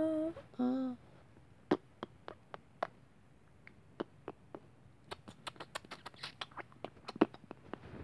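A woman hums a short sung phrase for about the first second, then a scatter of small, irregular clicks and taps that come faster near the end.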